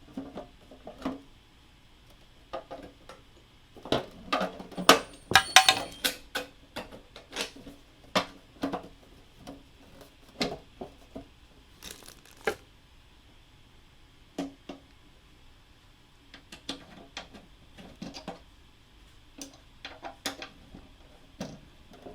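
Irregular clicks and taps of plastic model-kit parts and small metal screws being handled and fitted together, with a quick cluster of clatter about five seconds in.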